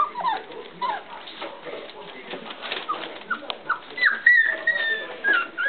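Four-week-old puppies whimpering and squeaking in short, high, mostly falling calls, with a longer whine about four seconds in.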